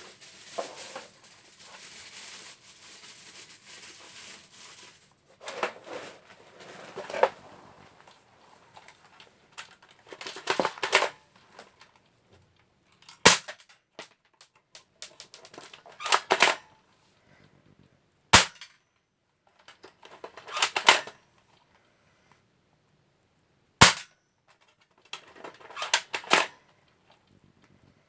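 A BB gun firing three sharp single shots about five seconds apart, with clusters of rattling clicks from handling the gun between them. During the first few seconds there is a soft crinkling rustle of tinfoil.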